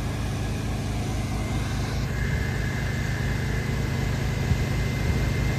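Engine running steadily at an even speed, a constant low drone. A faint high steady whine joins about two seconds in.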